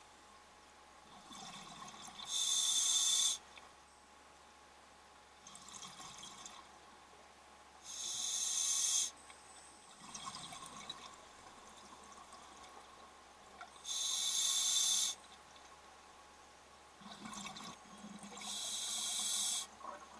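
Scuba diver breathing underwater through a regulator: four breaths, each a softer inhale followed by a louder rush of exhaust bubbles lasting about a second, roughly every five to six seconds.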